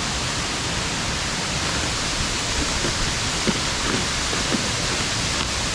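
Steady rushing of water falling at a waterfall, an even hiss with no change in level.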